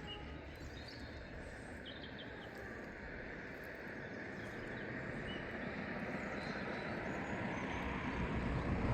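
Outdoor background noise: a distant road-traffic rumble that grows slowly louder, with a few faint bird chirps.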